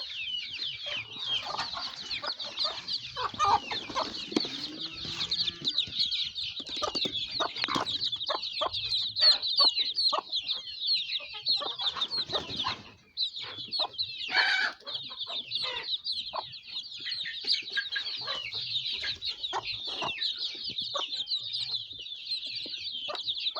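A crowd of young chicks peeping: many short, high, falling cheeps overlapping nonstop, with scattered knocks and taps among them. The peeping breaks off briefly about halfway through.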